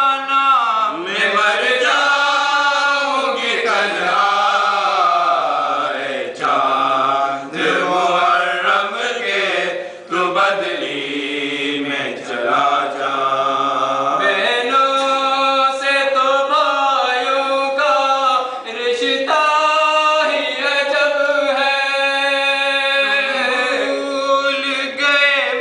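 Unaccompanied men's voices chanting a noha, a Shia mourning lament in Urdu for Muharram, to a slow melody of long held, gliding notes.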